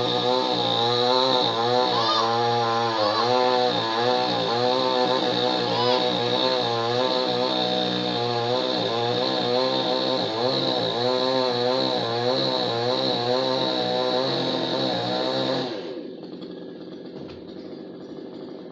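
Chainsaw cutting through a tree, its two-stroke engine note dipping and rising as the chain bites into the wood. About three-quarters of the way through, the throttle is released and the engine winds down to a much quieter level.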